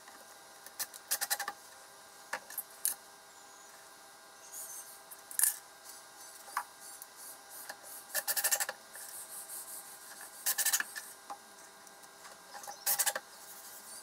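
Faint, short bursts of scraping and rapid clicking, about six of them a second or two apart, from screwing a pine board down onto a CNC router's bed with a cordless drill-driver.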